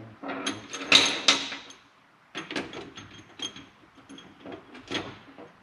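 Metal tools and engine parts clinking and clattering on a workbench: a quick run of sharp metallic knocks with a ringing tail, loudest about a second in, then scattered lighter clinks.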